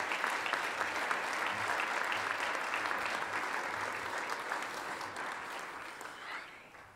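Audience applause, many hands clapping steadily, then thinning out and dying away near the end.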